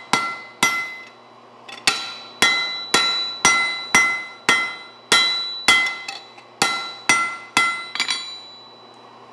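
Blacksmith's hand hammer striking an axe blade on the anvil, about two blows a second with a short pause near the start. Each blow rings with a clear metallic tone as the blade's edge is feathered out.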